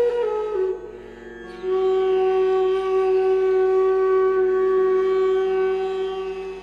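Instrumental music: a flute-like wind instrument playing a slow melody, with a short break about a second in and then one long held note.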